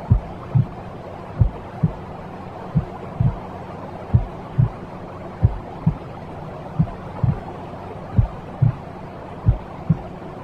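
Steady white-noise hiss for soothing a baby, with a slow heartbeat-like double thump (lub-dub) repeating about every second and a third.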